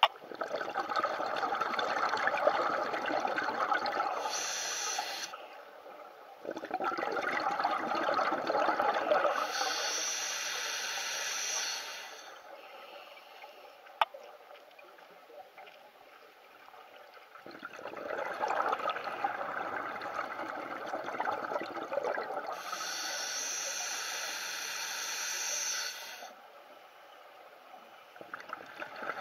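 Scuba diver breathing through a regulator underwater: three slow breaths, each a long rush of exhaled bubbles with a hissing regulator sound, separated by quieter pauses. A single sharp click sounds in the longest pause.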